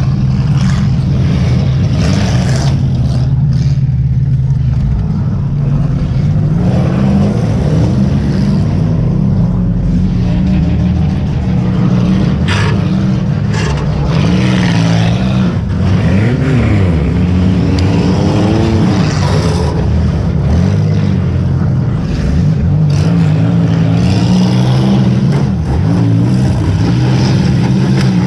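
Demolition derby car's engine running and revving, heard from inside the car, with its pitch rising and falling. A few short sharp knocks come through over it.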